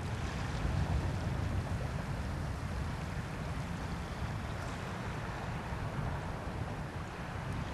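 Wind on the microphone, a steady low rumble, over a faint wash of small waves on a pebble shore.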